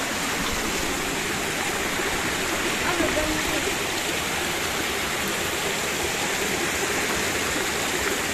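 A small waterfall and stream rushing steadily over rock ledges and slabs.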